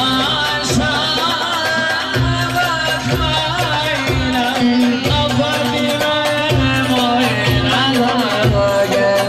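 Live Turkish folk dance music (oyun havası) played loud through PA speakers: an ornamented, wavering melody led by a bağlama (saz) over a steady, regular drum beat.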